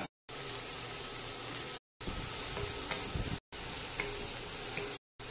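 Sliced onions sizzling in hot oil in a stainless steel wok while being stirred and tossed with wooden spatulas, the onions being sautéed soft. The sound cuts out completely for a moment about every second and a half.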